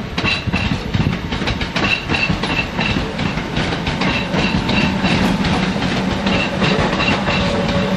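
Northern Class 319 electric multiple unit moving through the station, its wheels clattering rapidly over rail joints and points, with a steady low hum underneath.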